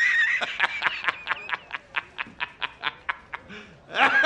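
A man's hysterical, high-pitched laughter. It starts on a held shriek, breaks into rapid ha-ha bursts of about five a second that die away, and a fresh loud burst of laughter starts near the end.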